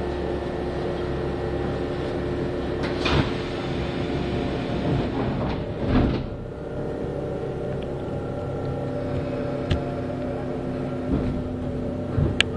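Kintetsu electric train's doors sliding and thumping shut, about three seconds in and again, louder, about six seconds in, over the steady hum of the train's electrical equipment. A few light clicks near the end.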